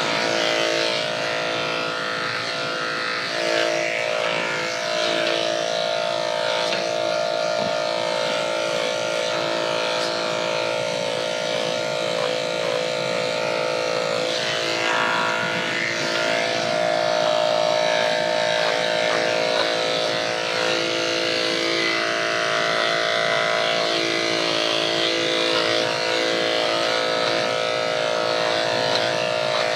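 Electric dog grooming clippers buzzing steadily as they shave a dog's coat short, with small shifts in tone as the blade works through the fur.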